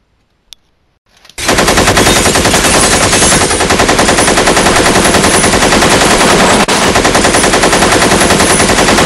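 Minigun firing sound effect: one long, unbroken burst of rapid fire, very loud, starting about one and a half seconds in after a faint click.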